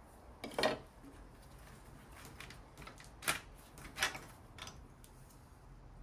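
A few sharp clicks and clinks of hand tools and small engine parts being handled in a diesel engine bay, the loudest about half a second in, with more around three and four seconds.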